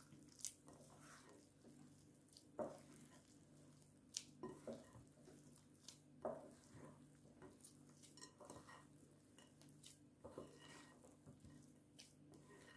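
Faint, irregular soft knocks and rustles of hands mixing flour and water into roti dough in a glass mixing bowl, with occasional light taps against the glass. A faint steady hum lies underneath.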